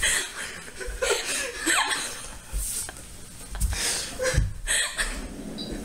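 People laughing and exclaiming in short bursts without clear words.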